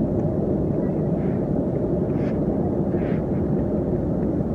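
Steady low roar of an airplane in flight, unchanging throughout, with a few faint brief higher noises on top.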